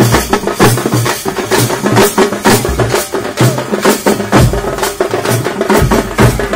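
A group of hand-held frame drums beaten together in a loud, fast, driving rhythm for the Karaga dance, many sharp strokes a second.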